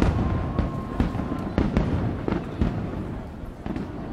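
Aerial fireworks shells bursting one after another: a loud bang at the start, then a rapid string of sharper cracks and booms. A faint thin whistling tone runs under the first second and a half.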